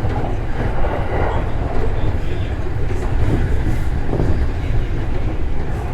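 Running noise of a train heard from inside the car: a steady low rumble of wheels on rail.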